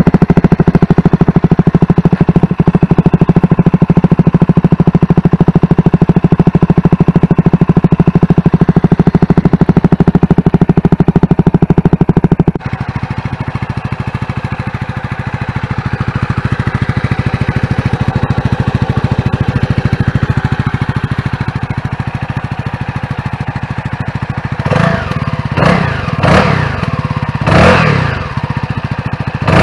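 CFMoto 300SS single-cylinder engine idling loud and steady through a Yoshimura GP-Force exhaust. About 12 seconds in it changes to the same bike on its stock muffler, idling much quieter. Near the end the throttle is blipped several times, each rev rising quickly to around 5500 rpm and dropping back to idle.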